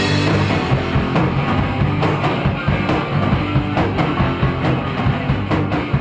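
Live rock band playing an instrumental passage on electric guitars and drum kit, with a steady driving beat and no vocals.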